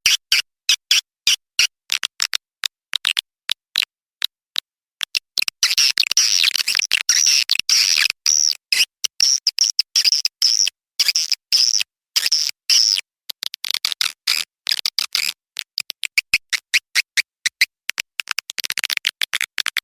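Recorded edible-nest swiftlet call track: rapid, clipped chirps and clicks, sparse at first, then packed into dense twittering through the middle and again near the end. It is a swiftlet-farming lure sound, played to call swiftlets into a nesting house.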